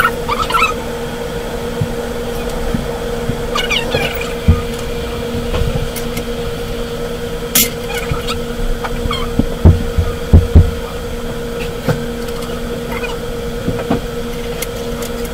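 A steady low hum throughout, with a few dull thumps and one sharp click about seven and a half seconds in as a stone chess piece is set down on a stone board.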